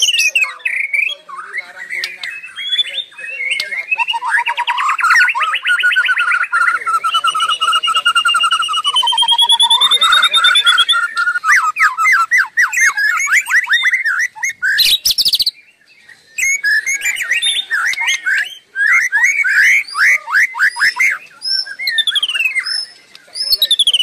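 White-rumped shama singing almost without a break: a varied run of clear whistles and fast trills, including one long trilled phrase of several seconds and bouts of rapid repeated notes. There is a brief pause about two-thirds of the way in.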